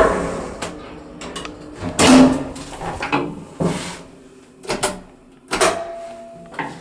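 ZREMB traction elevator car from 1977: the car doors shut with a sharp knock, followed by a string of clicks and clunks, the loudest about two seconds in, as the call buttons are pressed. A short steady tone sounds near the end.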